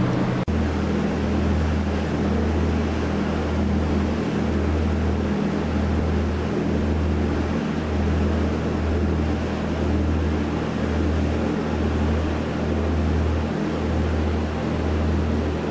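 Steady low rumble of a ship's engines heard on board, pulsing unevenly, under an even hiss of wind and water. The sound drops out briefly about half a second in.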